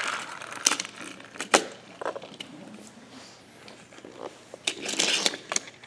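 A few light clicks and knocks of small toy train pieces being handled and set on a plastic track, with a short cluster of clatter near the end.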